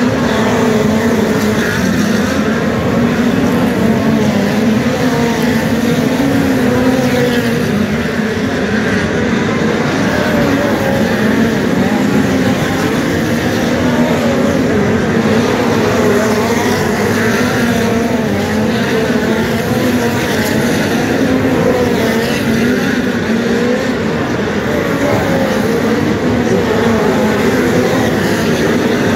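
Several dirt-track race cars running hard around the speedway, a continuous loud engine drone whose pitch keeps rising and falling as the cars accelerate and pass.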